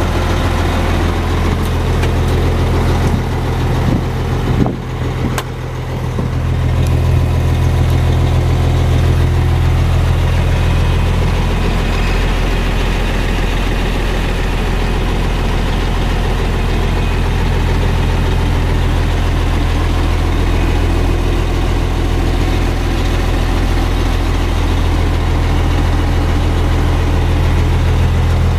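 Diesel engine of a 2006 Mack Granite plow truck idling steadily, heard from inside the cab, with a couple of brief knocks about five seconds in.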